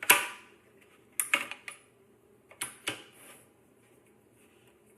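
Metal parts and hand tools clinking and knocking while a stationary exercise bike is put together. A loud ringing clink comes at the start, a quick run of clicks about a second in, and two more clinks near the middle.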